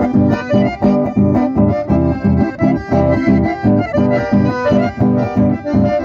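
Two accordions and an acoustic guitar playing a lively dance tune with a steady, regular beat, amplified through a PA.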